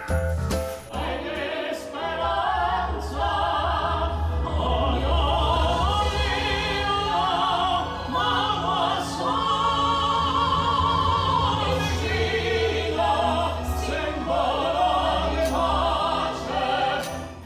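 Live stage singing in an operatic, classical style: a woman and a man with microphones sing long held notes with strong vibrato over a steady low orchestral accompaniment.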